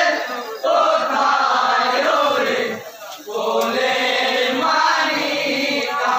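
Men chanting a Bengali marsiya, the Muharram lament, in long drawn-out phrases with a short break about three seconds in.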